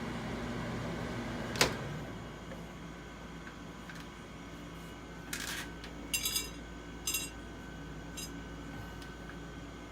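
Microwave oven running with a steady hum, cut by a sharp snap about one and a half seconds in, after which the hum drops away. Several short buzzing crackles follow in the second half, like electrical sparking from spark gaps inside the oven.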